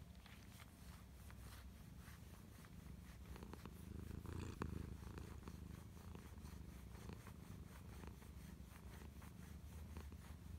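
Domestic cat purring steadily and softly while being rolled with a bristled massage roller, a sign it is enjoying the massage. A brief louder rustle comes about four and a half seconds in.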